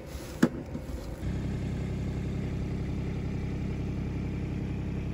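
A brief loud sound falling in pitch about half a second in, then an engine running steadily at idle from about a second in.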